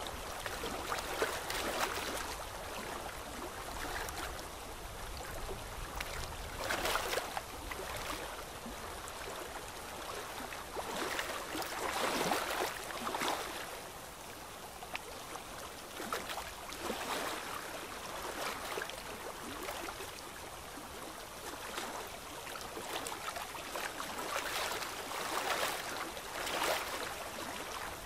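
A pen or marker scratching across paper in repeated strokes, a hiss that swells with each stroke every second or two.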